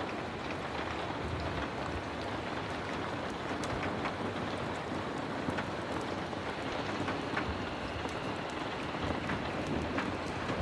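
Heavy rain falling steadily, a dense even hiss with many scattered sharp ticks of drops or crackles through it.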